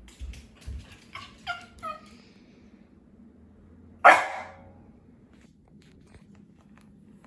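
Black Shiba Inu gives three short calls that fall in pitch about a second in, then one loud bark about four seconds in.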